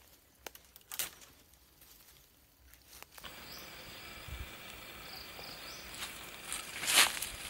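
Light footsteps and rustling in grassy undergrowth, then after about three seconds a steady outdoor background with faint insect calls. A few louder rustles of leaves and stems come near the end.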